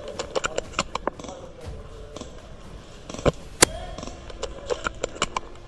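Airsoft guns firing: sharp shots in irregular quick strings, the two loudest a little past halfway.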